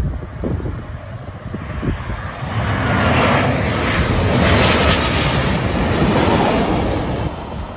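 Jet airliner on final approach passing low overhead: the engine noise swells to a peak a few seconds in, with a high whine dropping slightly in pitch as it goes by, then fades.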